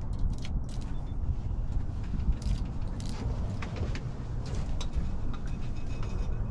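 Steady low rumble of a fishing boat underway at slow trolling speed, with wind buffeting the microphone and scattered light knocks and clicks aboard.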